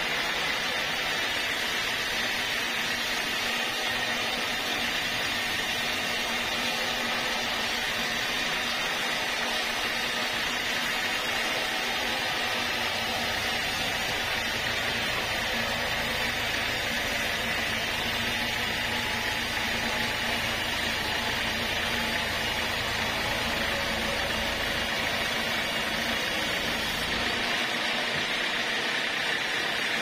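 Band sawmill blade cutting lengthwise through a large Javanese red-wood log: a loud, steady, hissing whine of the blade in the wood over the machine's drive. The low rumble underneath drops away near the end.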